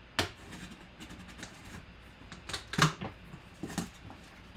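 Cardboard box being handled and its taped flaps pulled open: a sharp knock just after the start, then scraping and rustling of cardboard with a few knocks, loudest near the middle.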